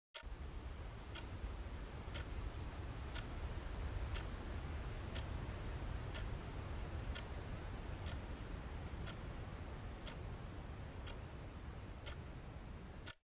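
A clock ticking steadily, about once a second, over a steady low rumbling noise.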